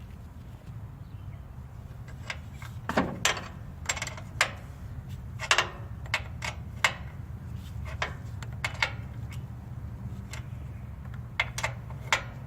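Irregular metallic clicks and knocks as a wrench works the oil drain plug back into a Bolens MTD lawn mower engine, threading it in and snugging it down. A steady low hum runs underneath.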